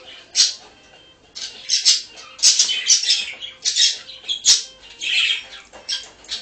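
Small parrot bathing in a shallow water dish, splashing and fluttering its wings in the water in a rapid, irregular series of short splashes, roughly two a second.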